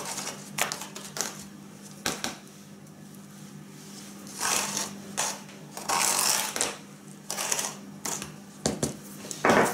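Plastic scoop pressing and scraping over potting soil in a plastic tray as the soil is tamped down: a string of short scratchy rustles, with longer, louder ones from about four seconds in.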